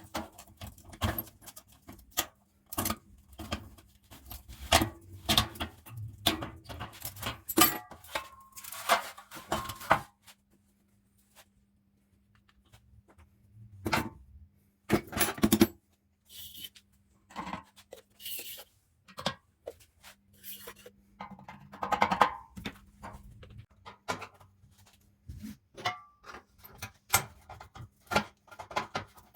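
Irregular clicks, clinks and knocks of hand tools and metal fan parts being handled, with a few seconds of near quiet about ten seconds in.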